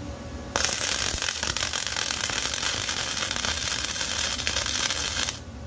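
Wire-feed welder arc crackling as a nut is welded onto a bracket: one continuous bead of about five seconds, striking suddenly about half a second in and cutting off just before the end.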